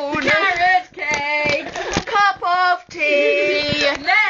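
A woman's voice singing loudly in a run of short held notes, several phrases in a row with brief breaks between them.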